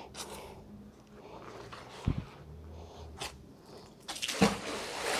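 Handling noise from a magnet-fishing magnet being cleared by gloved hands: small bits of scrap metal are pulled off it and dropped into a plastic bucket, with scattered clicks and rustles and a sharp knock about two seconds in. A louder, noisier rustle comes near the end.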